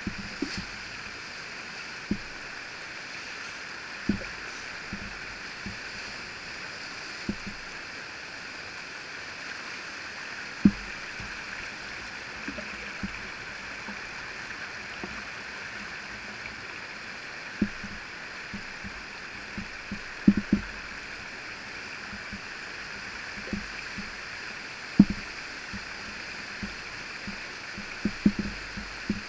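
Steady rushing of whitewater from a river's standing surf wave, with irregular dull thumps every few seconds.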